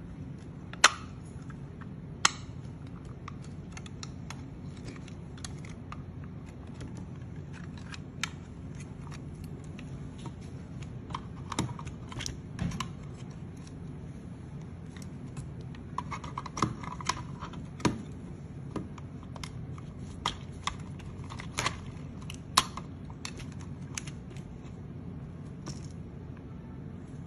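Plastic parts of an Ocular Max U-01 Stellarus transforming robot figure's leg being handled and fitted together: scattered clicks, snaps and light knocks, two sharp clicks about one and two seconds in, over a steady low hum.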